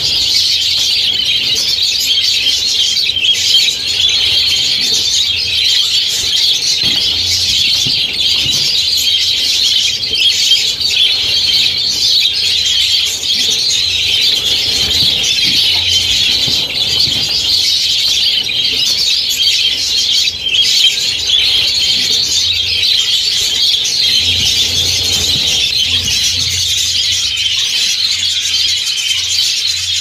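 A large flock of budgerigars (budgies) chattering and chirping all together in a dense, continuous, high-pitched chorus, with wings flapping as birds fly about the room.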